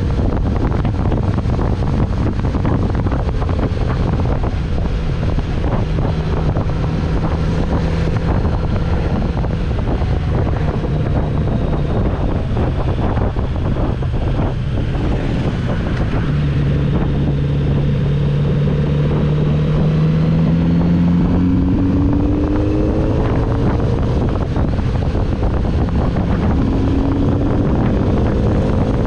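Kawasaki Z900RS inline-four engine running as the bike is ridden, under heavy wind rushing over the microphone. A little past the middle the engine note climbs steadily as it accelerates, and it rises again in a few short climbs near the end.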